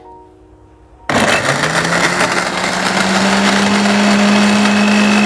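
A Philips electric blender switched on about a second in, its motor spinning up quickly with a brief rising whine, then running steadily at high speed while chopping shallots and garlic into a paste.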